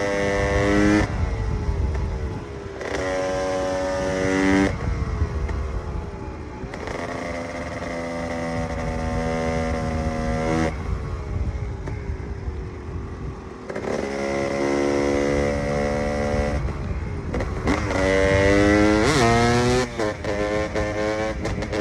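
KTM EXC 300's two-stroke single-cylinder engine being ridden hard, pulling at high revs in repeated bursts of a few seconds and dropping off between them. Near the end come several quick throttle blips.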